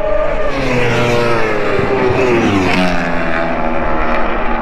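A racing motorcycle passes at speed on the circuit's straight, its engine note falling in pitch as it goes by.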